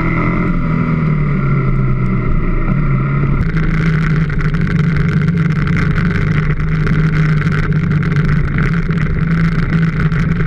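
Ducati Hyperstrada's L-twin engine running at a fairly steady pitch while the bike is ridden, recorded on the bike, with wind and road noise. About three seconds in the sound changes abruptly and the wind and road noise grows brighter.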